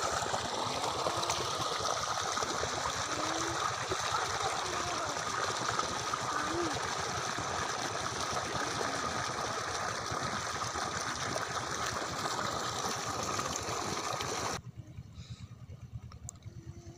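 Pumped irrigation water rushing steadily along a shallow earth channel; the rushing cuts off suddenly near the end, leaving a much quieter background.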